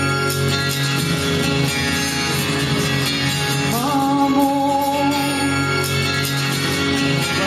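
Instrumental backing track of a song plays, and about halfway through a girl's singing voice comes in with one long note that slides up and then holds.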